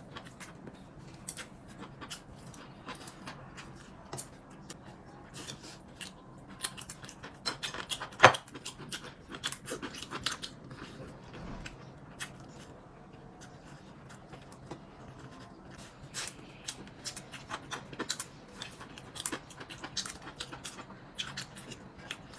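Eating at the table: scattered small clicks and taps of utensils against bowls and dishes, with mouth sounds of chewing, and one sharper clack about eight seconds in.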